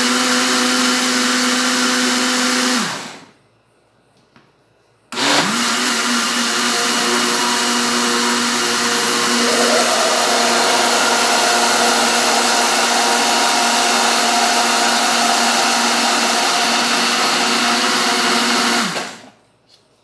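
Countertop blender mixing oil and lye solution with liquid detergent into soap batter, in two runs. A short run of about three seconds winds down, then after a two-second pause a long run of about fourteen seconds starts up, its tone changing a little midway, and it winds down near the end.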